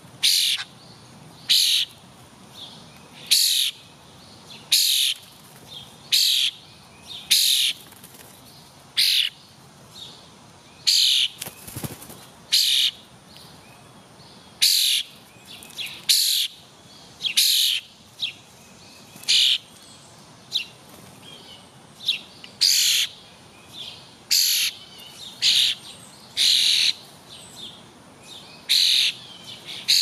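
A songbird giving short, sharp, high calls over and over, roughly once every one to two seconds at an irregular pace.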